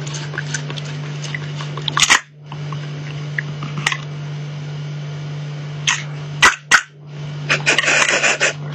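A cat licking at a catnip ball on a handheld toy, with faint wet clicks and rustles over a steady low hum; the sound breaks off briefly twice, and a busier scuffle of pawing comes near the end.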